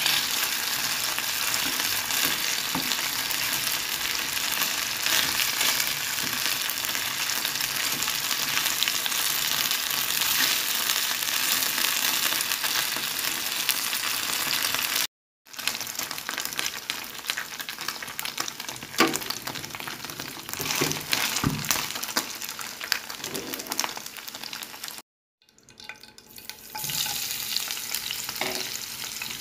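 Marinated chicken pieces sizzling in hot oil in a pan, stirred with a spatula that scrapes and clicks against the pan. The sizzle cuts off suddenly twice. Near the end a fresh sizzle builds as sliced red onion and minced garlic hit the oil.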